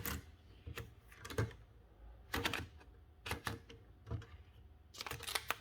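Scattered sharp clicks and short clattering runs from a 1908 Remington No. 7 typewriter's paper-handling parts being worked by hand, with a busier cluster of clicks near the end.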